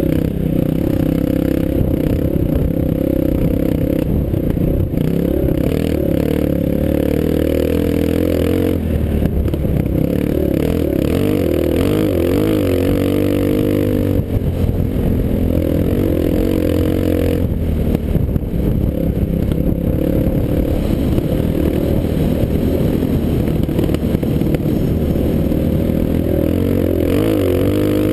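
Off-road vehicle engine running under load along a dirt trail, its pitch rising and falling as the throttle is worked.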